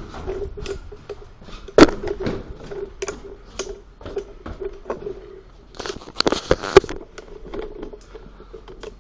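Handling noise from a handheld camera carried against a fleece jacket: rustling and scraping with many small clicks, and sharp knocks about two seconds in and again between six and seven seconds in.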